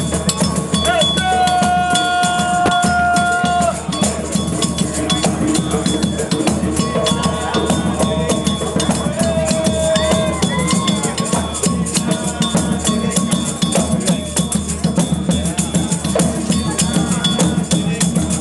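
Mardi Gras Indian street music: dense, fast shaken and struck hand percussion with voices, and a long steady held note about a second in.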